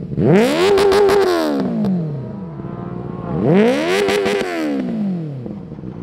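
Benelli TNT 600i's inline-four, fitted with an aftermarket exhaust, revved twice. Each time the revs climb sharply, hold briefly at the top, then fall back toward idle over a second or two.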